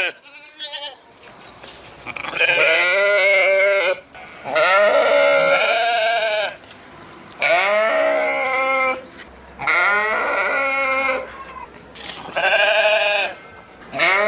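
Sheep bleating: about five long, wavering bleats in a row, each lasting a second and a half to two seconds, with short pauses between them.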